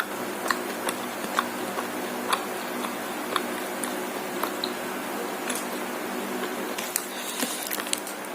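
Close-up mukbang eating sounds: wet chewing and mouth clicks while eating martabak, with scattered sharp clicks that grow denser near the end.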